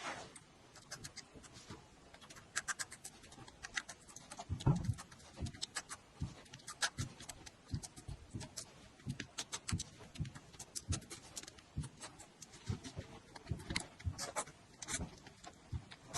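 Close-miked eating sounds: a person chewing and smacking, with irregular wet mouth clicks and soft low thuds.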